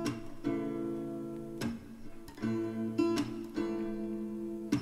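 Background music: acoustic guitar strumming chords, a new strum about every second, with no singing.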